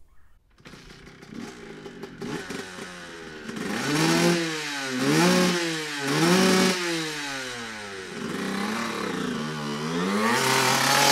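Dirt bike engine revving, its pitch swinging up and down several times, then climbing as the bike pulls away, loudest near the end.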